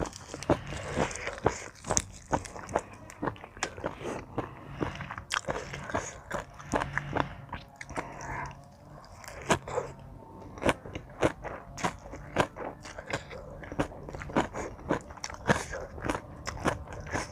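Close-up chewing and crunching of a spicy Thai seafood salad, with many sharp, crisp bites in quick succession.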